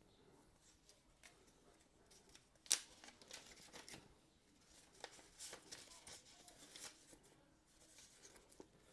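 Faint rustling of paper instruction leaflets being handled and leafed through, with one sharp click about three seconds in.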